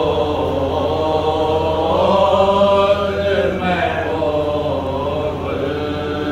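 Male voice chanting a Shia ziyarat recitation in long, melodic held notes, over a steady low hum.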